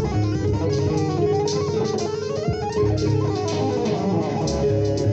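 Electric guitar played with two-handed tapping in a fusion-style jam: fast legato runs that rise and fall in pitch, over a held higher note and low bass notes.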